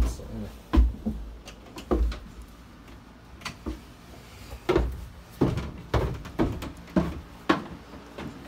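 About ten irregular knocks and thumps of a person moving about and handling things, with a quieter stretch in the middle.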